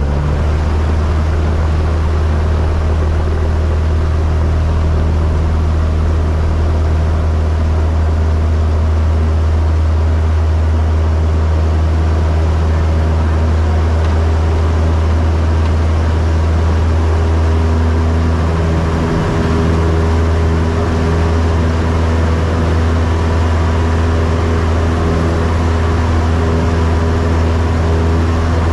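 Cessna 172's piston engine and propeller running steadily at take-off power, a loud, unbroken drone that holds its pitch.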